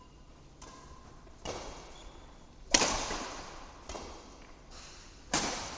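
Badminton rackets striking a shuttlecock back and forth in a rally: four sharp hits about a second and a bit apart, the loudest near the middle, with a couple of fainter taps. Each hit echoes in the large hall.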